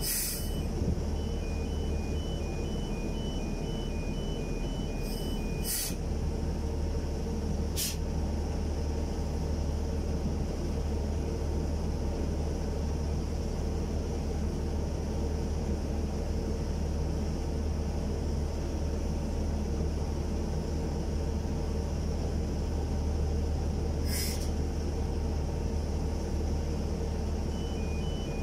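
Crawler crane's diesel engine running steadily under load as it holds a lattice boom section on the hook. A repeating two-tone warning beeper sounds for the first six seconds or so, stops, and starts again near the end, with a few sharp clicks in between.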